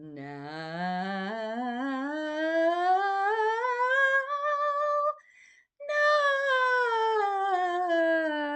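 A woman's voice toning: one long wordless sung tone with a slight waver that slides slowly upward in pitch for about five seconds, breaks off briefly for a breath, then a second long tone slides back down.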